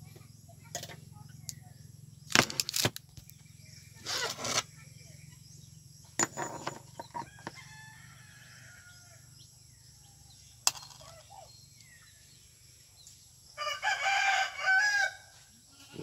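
A few sharp clicks and knocks, the loudest about two and a half seconds in and again near eleven seconds, over a steady low hum. Near the end comes a pitched call lasting about a second and a half, like an animal's call.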